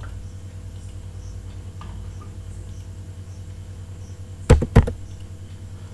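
Two sharp computer mouse clicks in quick succession about four and a half seconds in, over a steady low hum.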